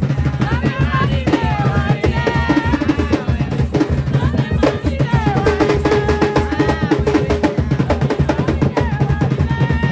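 Garifuna hand drums beaten with bare hands in a fast, driving Wanaragua rhythm, with voices singing over them and a note held for a couple of seconds about halfway through.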